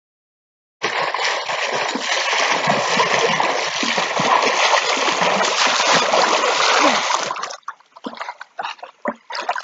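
Pool water splashing as two people swim towards the microphone, starting abruptly about a second in and cutting off suddenly at about seven and a half seconds. Small splashes and laps of water follow near the end.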